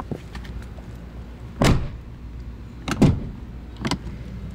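Truck door shut and worked against tight new rubber weatherstripping: a solid thud about a second and a half in, then two more latch clunks, the last one lighter.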